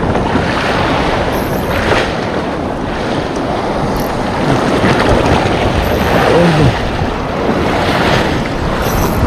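Sea waves washing against the shore, with wind buffeting the microphone.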